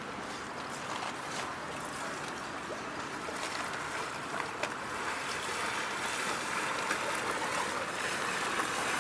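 Muddy water sloshing and splashing as soldiers crawl and then wade and run through a flooded obstacle trench, getting a little louder toward the end.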